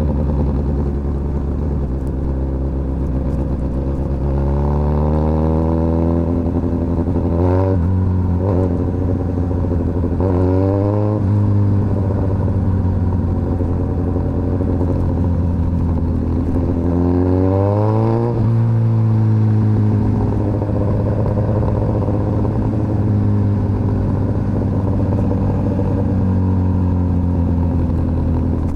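Suzuki GSX-S1000's inline-four engine running steadily, with three quick climbs in pitch, about eight, eleven and eighteen seconds in, each cut off with a sudden drop back.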